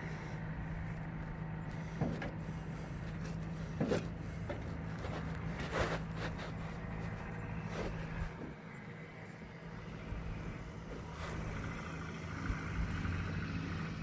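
Tractor engine idling steadily, with a few short knocks and clatters now and then.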